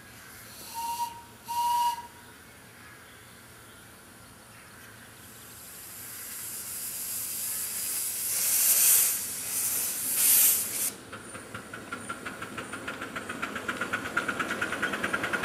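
Miniature live-steam locomotive: two short whistle toots about a second in, then a loud hiss of steam blowing out at the cylinders. Near the end it moves off with a fast, even chuff of about five beats a second.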